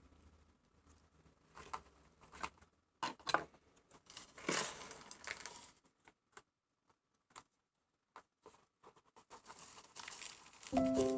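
Quiet handling of potted succulents and potting soil: scattered soft clicks and rustles, with a longer gritty rustle about four and a half seconds in. Music starts just before the end.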